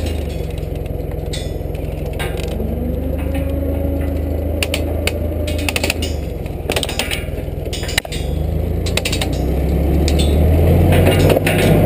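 Forklift engine running while the forklift drives, its pitch rising and falling, with scattered clicks and knocks. It gets louder near the end.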